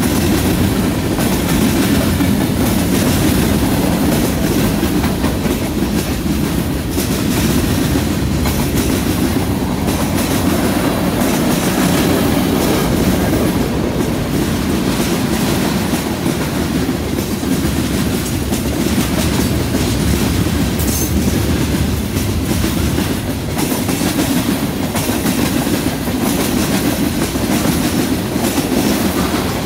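Freight train cars rolling past close by: a steady rumble of steel wheels on the rails with clickety-clack over the rail joints.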